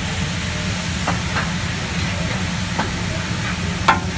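Liquid from a squeeze bottle hissing and sizzling into steam on a hot teppanyaki griddle over mushrooms and chicken, with a steady low hum underneath. A few sharp clicks come through, the loudest near the end.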